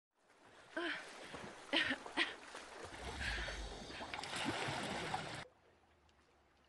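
Water splashing and sloshing around a sailing canoe's hull, with a few short, sharp pitched sounds over it about one and two seconds in. The sound cuts off abruptly about five seconds in.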